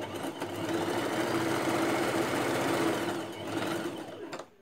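Domestic sewing machine stitching a seam: the motor runs up to speed, sews steadily for about three seconds, then slows and stops shortly before the end.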